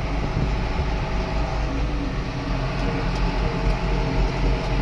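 John Deere 6415 tractor's diesel engine running steadily under load while towing a dump box and grain head on the road.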